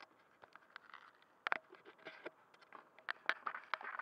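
Irregular clicks, taps and short scrapes from the glider being handled, picked up by the camera mounted on its fuselage; the taps come more often in the second half.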